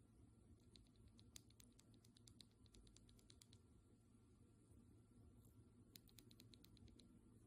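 Faint typing on a mechanical keyboard with Gateron North Pole 2.0 Silver linear switches: quick runs of soft keystrokes, a longer flurry in the first few seconds and a shorter burst near the end.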